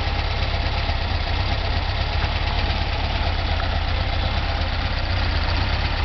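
Air-cooled flat-four engine of a classic Volkswagen Beetle idling steadily. The engine is hot and is said to be overheating; it hesitates when it gets hot.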